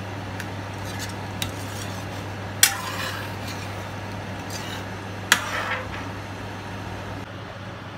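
Metal spoon stirring thickened mapo tofu in a nonstick wok, scraping through the sauce with a few light ticks and two sharp clinks against the pan, about two and a half and five seconds in, over a steady low hum.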